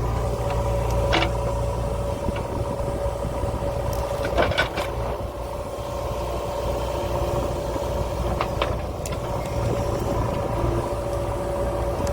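JCB backhoe loader's diesel engine running steadily, with a few short knocks.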